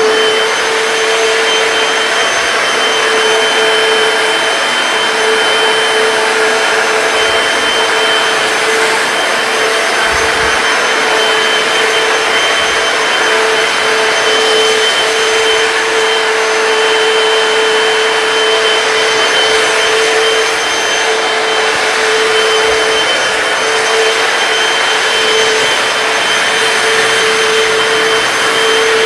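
Hoover PowerDash hard floor cleaner running steadily, a constant whine over a dense rushing hiss.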